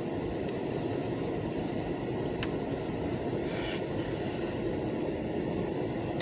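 Buffalo & Pittsburgh local freight train rolling past as a steady, even rumble. There is a faint click about two and a half seconds in and a brief hiss a second later.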